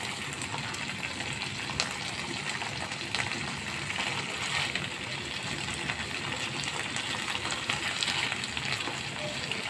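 Yogurt and mustard-paste masala sizzling steadily in a frying pan, with a few light clicks as hilsa steaks are laid into it.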